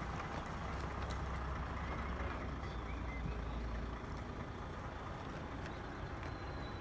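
Heavy low-loader lorry's diesel engine running as it slowly moves a railway coach, a low rumble that eases off about four seconds in.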